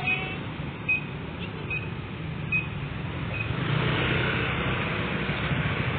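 Pickup truck engine running at idle, with a short high beep repeating about every 0.8 seconds. After about three and a half seconds the engine grows louder.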